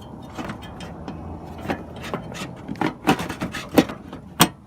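Irregular clicks, knocks and scrapes of hand work with tools and plastic parts around a car's headlight fasteners, with a sharper knock near the end.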